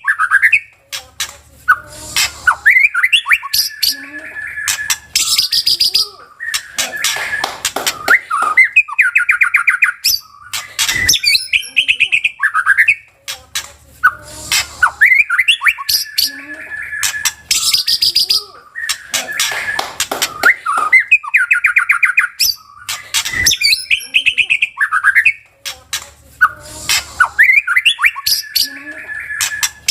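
White-rumped shama (murai batu) singing a varied song of clear whistles, trills and rapid chattering notes. The same sequence of phrases repeats about every six seconds.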